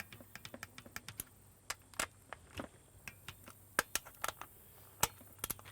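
Scattered light clicks and taps at an irregular pace from small parts being handled during ignition reassembly on an outboard motor.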